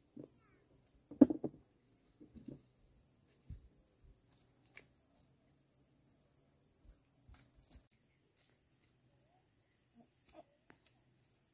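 Insects droning steadily at a high pitch, with scattered rustles and soft knocks of a child moving in grass and a single louder thump about a second in.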